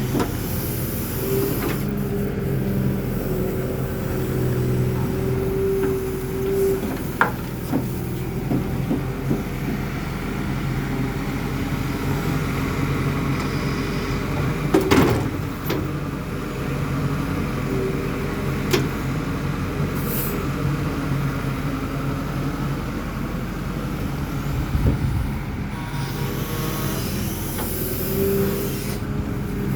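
Excavator engine running steadily under work, with a higher whine that comes and goes and a few sharp knocks, the loudest about halfway through.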